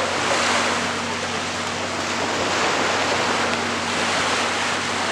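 Sea surf washing on a beach: a steady rushing noise that swells and eases a few times.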